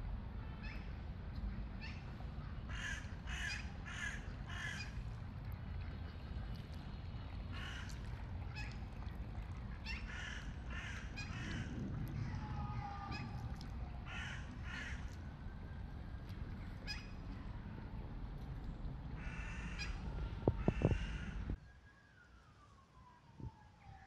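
Crows cawing again and again, in runs of three or four harsh calls, over a steady low rumble that cuts off near the end.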